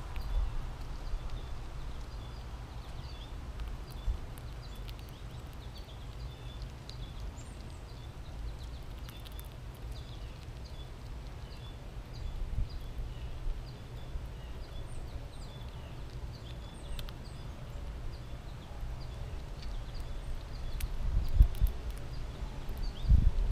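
American red squirrel cracking and chewing sunflower seeds close to the microphone, with scattered small sharp clicks, over a steady low rumble. Small birds chirp faintly in the distance, and a few louder thumps come near the end.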